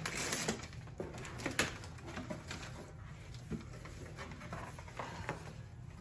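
Packing paper rustling and crackling and a cardboard box being handled as it is unpacked, with the crackling densest and loudest in the first two seconds.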